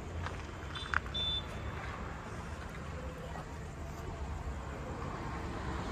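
Heavy machine's diesel engine idling with a steady low rumble, and two short high beeps about a second in.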